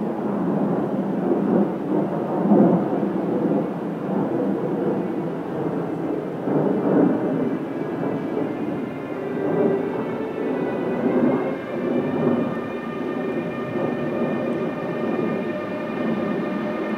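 An ÖBB railjet train moving slowly along the station track, its running gear giving a steady, uneven rumble. About halfway through, a whine of several steady tones from the electric traction equipment joins in and holds to the end.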